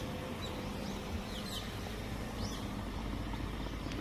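Birds chirping: short high chirps that bend in pitch, roughly one a second, over a low steady rumble.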